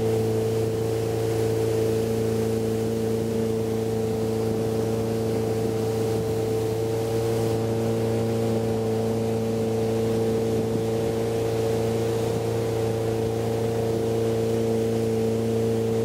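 Cabin cruiser's engine running steadily at cruising speed: an even, low drone that does not change in pitch or loudness.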